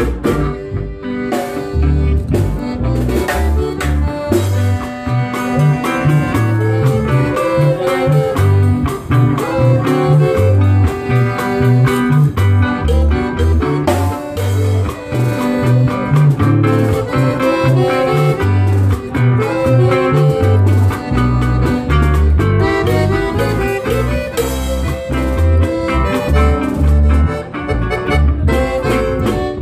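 Live instrumental norteño-style music: a Hohner piano accordion plays the melody over a strummed guitar and an electric bass walking a steady, rhythmic bass line.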